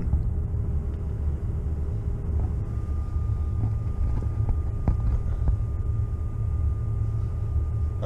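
Car engine idling, heard from inside the cabin as a steady low rumble. A faint steady high tone comes in about a third of the way through, and there is a light knock about five seconds in.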